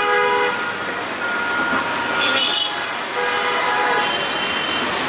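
Street traffic noise with vehicle horns sounding several times, each held for under a second.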